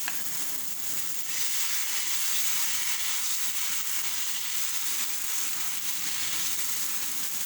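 Dosa batter sizzling on a hot griddle as it is poured, a steady hiss.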